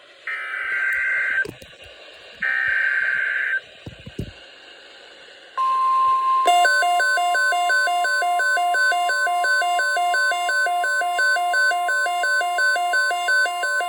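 Emergency Alert System SAME header: two harsh one-second bursts of digital data tones, about a second apart. Then the steady single-pitch NOAA Weather Radio warning alarm tone comes on. About a second later a fast, evenly alternating two-pitch beeping alarm joins it.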